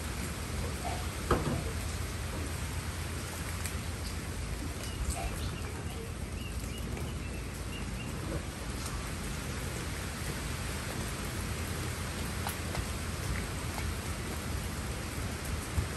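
Steady rain falling on broad garden leaves and ground, with single drops striking close by now and then; the sharpest drop lands about a second in.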